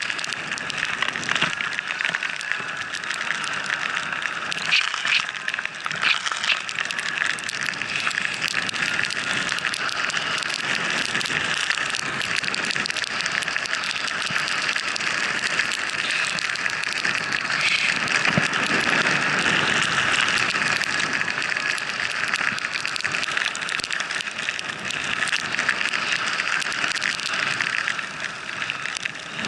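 Skis sliding and turning through fresh powder snow: a steady hiss that keeps going with the turns, a little louder partway through.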